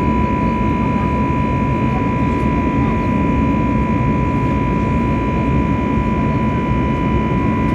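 Airbus A320neo passenger cabin in flight, heard from a window seat beside the engine: the jet engines' steady roar with a steady high whine over it.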